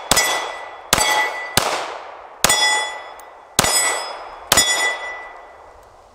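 Stoeger STR-9 9mm pistol firing six shots at about one a second, most of them followed by the ringing clang of a struck steel plate target.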